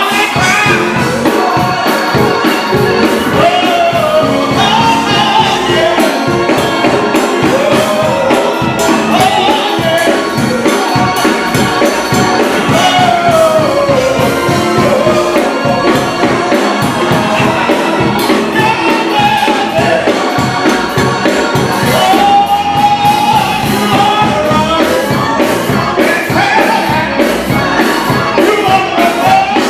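Gospel music: a choir singing over a band with a steady beat and tambourine.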